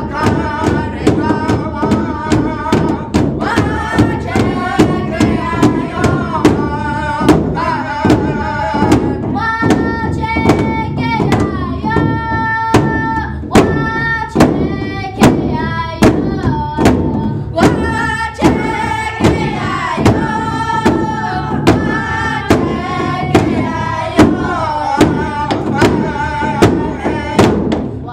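Children beating a large powwow-style drum together with padded sticks in a steady, even beat, while a group of high children's voices sings over it in long, held, sliding notes.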